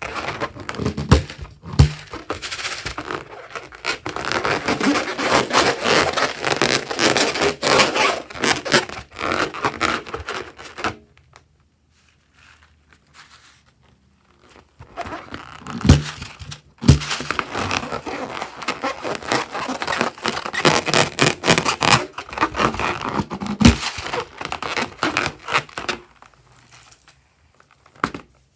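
Slime being squished and worked by hand, a dense sticky crackling and squelching in two long stretches separated by a quiet pause of a few seconds, with a few sharp thuds.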